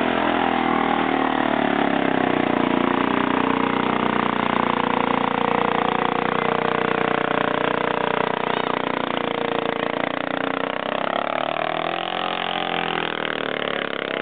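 Arctic Cat ATV engine running continuously under heavy load as the quad churns through deep mud, labouring in the bog. Its pitch dips and then rises as it revs near the end, and it grows slowly fainter as it pulls away.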